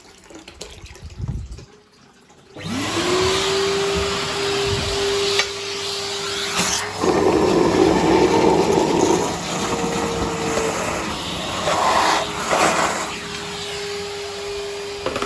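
Numatic George wet-and-dry vacuum switched on about two and a half seconds in, its motor spinning up to a steady whine and sucking at a blocked sink drain to clear it. Two louder rushing surges come partway through, the longer one about five seconds in.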